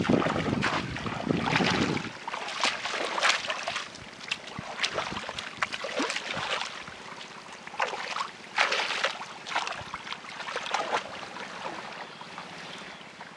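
Shallow muddy water splashing and sloshing as hands grope inside a bamboo plunge basket trap and feet wade through the water. Heavier sloshing in the first two seconds, then scattered short, sharp splashes and drips.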